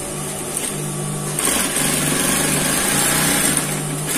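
High-speed industrial sewing machine stitching thin stretch fabric: a steady motor hum that grows louder about a second and a half in.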